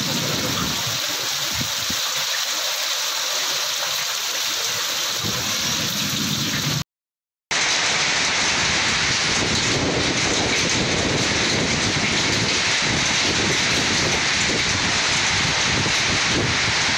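Heavy rain pouring down in a steady hiss. It cuts out briefly about seven seconds in, then carries on a little louder and fuller.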